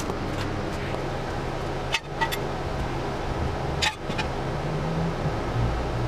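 A hydraulic floor jack being let down, its handle clinking sharply a few times, about two and four seconds in. Under it runs the steady low hum of the car's engine idling.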